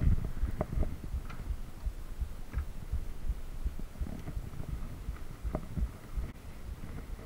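Mountain bike riding down a dirt singletrack: a low rumble from the tyres and frame, with irregular dull thumps and clicks as the bike jolts over roots and bumps.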